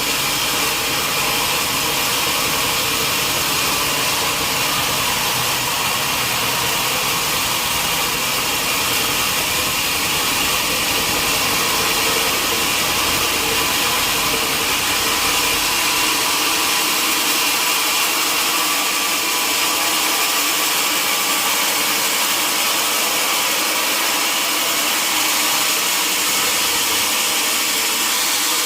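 Sawmill machinery running steadily, a constant loud hiss and whir; the low rumble under it drops away about halfway through.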